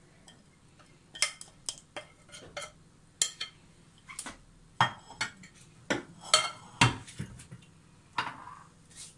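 Metal spoon scraping and clinking against a ceramic bowl while thick batter is scraped out: a string of irregular sharp clinks and short scrapes, starting about a second in.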